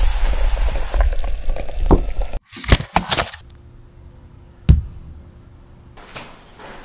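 Raw rice grains poured from a bowl into a pan of broth on the burner, a steady hiss lasting about two seconds. After a sudden cut come a few light handling clicks and one sharp knock as a pastry-wrapped beef Wellington is set down on a parchment-lined baking tray.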